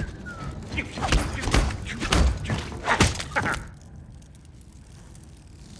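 A quick run of heavy metallic thuds and clanks: a small robot's feet running on a steel submarine deck. They stop suddenly about three and a half seconds in, leaving faint steady room noise.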